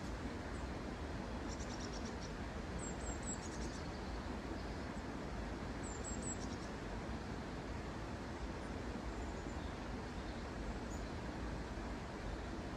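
Small birds giving a few brief, very high-pitched chirps, in two short bursts about three seconds apart, over a steady outdoor rushing noise.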